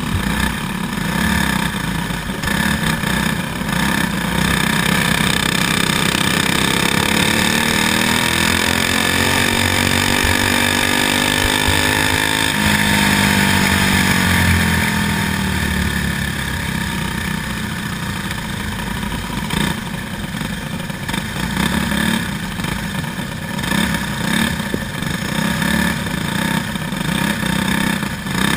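Racing go-kart engine heard from onboard the kart, running hard under racing throttle. Its pitch climbs steadily for several seconds, drops sharply when the throttle is lifted about halfway through, then the engine runs on rough and uneven.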